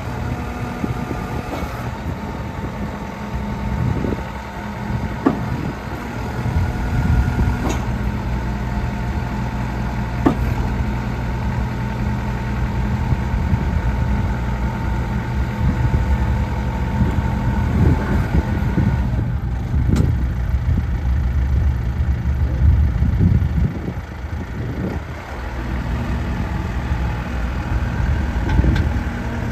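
JCB 214 backhoe loader's four-cylinder turbo diesel running steadily, louder through the middle stretch, with a few short metallic clanks.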